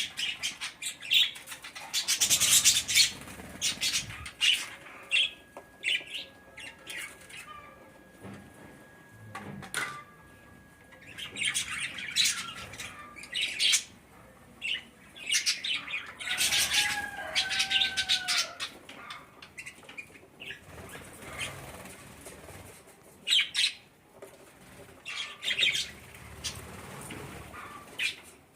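Budgerigars chirping and chattering in irregular runs of short, sharp calls, with a couple of gliding whistled notes partway through.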